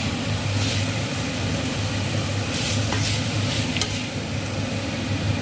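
A utensil stirring and scraping vegetables that sizzle in a frying pan, with a few sharper scrapes. A steady low hum runs underneath.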